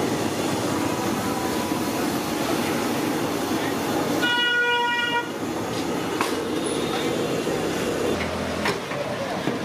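Steady street din, with a vehicle horn honking once for about a second, roughly four seconds in.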